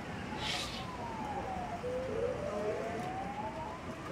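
Claw machine's electronic sound effect: one tone glides down while the claw drops, then glides slowly back up as the claw lifts with a plush toy.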